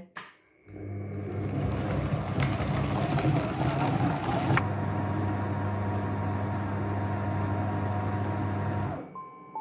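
Monsieur Cuisine Connect food processor running at speed 4, its blade blending potatoes cooked in milk into purée. A steady motor hum, noisier with churning for the first few seconds, cuts off abruptly near the end.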